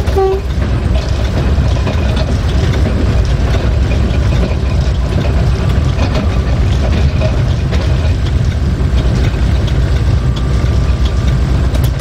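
Diesel-electric locomotive EGM621 running, heard from inside its cab: a steady, heavy engine and wheel rumble with faint ticks. A multi-tone air horn sounds its last short note just as the sound begins.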